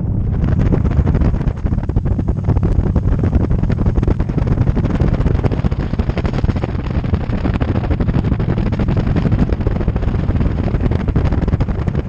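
A motorcycle riding at road speed, with wind rushing and buffeting over the bike-mounted camera's microphone, making a dense, steady low rumble.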